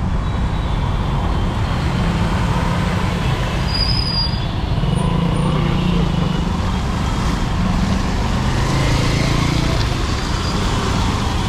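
Steady traffic and road noise in heavy rain, with a low engine rumble, heard from inside a vehicle moving through traffic.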